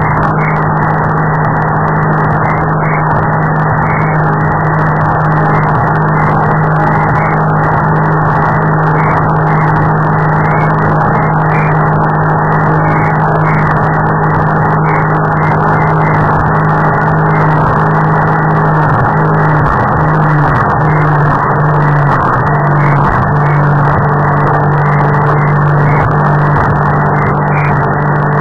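Powerboat engine running loud and steady at a constant pitch while the boat is under way, heard from on board.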